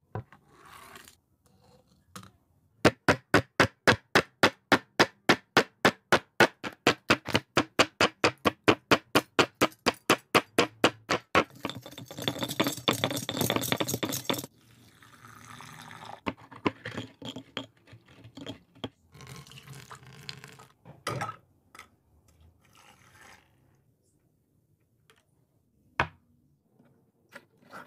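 Stone pestle pounding a toy car in a stone mortar: rapid even strikes about four a second for around nine seconds, then a few seconds of grinding and crunching as the pieces are ground down. After that, softer scraping and stirring in a small cup with a wooden stick, a few light knocks, and one sharp knock near the end.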